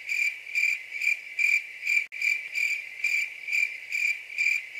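Stock cricket-chirping sound effect: a steady high chirp repeating a little more than twice a second, the cartoon cue for an awkward silence.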